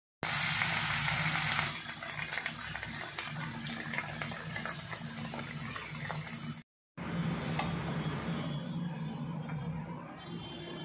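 Pieces of rohu fish sizzling and crackling as they fry in hot mustard oil in a wok. The hiss is loudest in the first second and a half, as a spatula turns the pieces. The sound drops out for a moment about two-thirds of the way through, then the sizzling resumes, softer.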